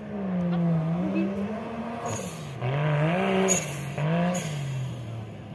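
Off-road buggy's engine revving, its pitch rising and falling several times as the throttle is worked.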